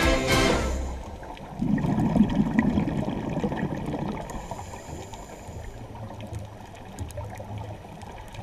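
Background music stops within the first second, leaving underwater sound picked up by the camera. About a second and a half in, a diver's exhaled bubbles rush and gurgle for a second or two. After that comes a low steady underwater rumble with scattered faint clicks.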